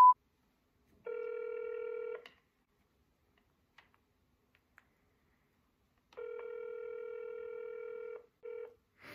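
Phone on speaker ringing out on an outgoing call: the ringback tone sounds twice, about two seconds on and four seconds off, with a short blip of the tone near the end. A loud one-tone censor bleep cuts off at the very start.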